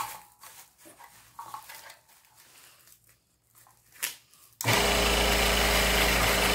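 A few light knocks and taps of handling, then about four and a half seconds in a flexible-shaft rotary tool switches on and runs at a steady speed, its bit grinding into wood.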